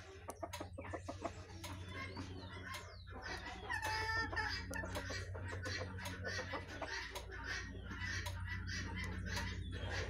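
Chickens clucking in a run of short calls, with one louder call about four seconds in.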